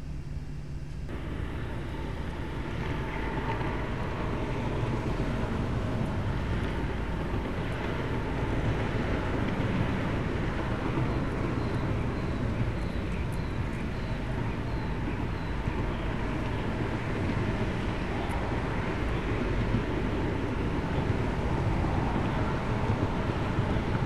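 Steady outdoor background noise picked up by the nest camera's microphone: a low rumble and hiss, which sets in about a second in. About halfway through comes a faint run of short, high chirps, about two a second.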